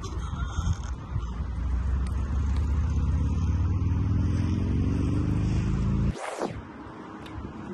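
A deep rumble whose pitch rises steadily over several seconds, then cuts off suddenly about six seconds in, followed by a quick whoosh.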